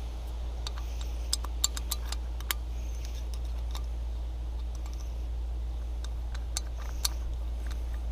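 Scattered small metallic clicks and clinks as the pilot drill bit is worked out of a hole saw's arbor, over a steady low hum.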